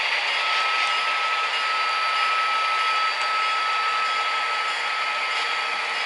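H0-scale model coal hopper cars rolling along the track, their small metal wheels making a steady rolling hiss on the rails. A thin steady whine runs along with it and stops about three-quarters of the way through.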